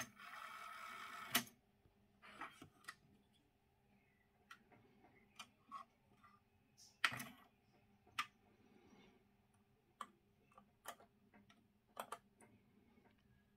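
Sony TC-K909ES cassette deck being operated: a short whirring run of the tape transport at the start, ending in a sharp clunk. It is followed by a scattering of light button clicks and mechanism clicks about every second or two.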